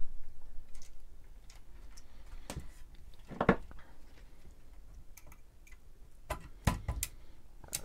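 Plastic computer case and circuit board being handled and set down, giving scattered light clicks and knocks, with a louder knock about three and a half seconds in and a few more near the end.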